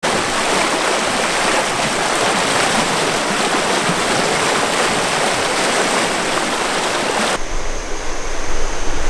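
Whitewater rapids in a rocky creek rushing loudly and steadily. About seven seconds in the sound cuts abruptly to a duller, lower rumble.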